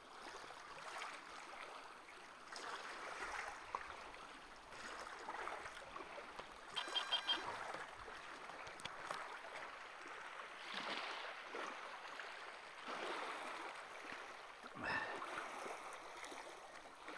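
Faint, uneven rushing noise that swells and fades, with a brief run of rapid, high repeated notes about seven seconds in.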